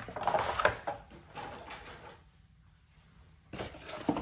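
Cardboard collection box and its packaging being handled, with rustling and scraping for about the first second. After a pause, more handling comes near the end.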